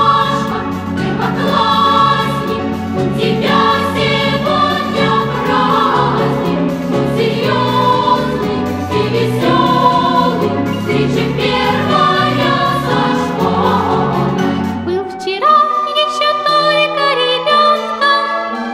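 Background music with a choir singing over a steady bass accompaniment. About fifteen seconds in the bass drops away and the music turns lighter and sparser.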